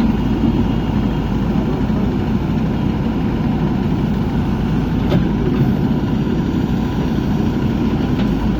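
JCB backhoe loader's diesel engine running steadily while digging, with a single brief clank about five seconds in.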